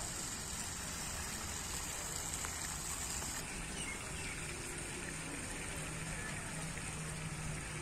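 Steady splashing hiss of water from a garden pool fountain, with faint voices of visitors. The hiss drops a little about three and a half seconds in.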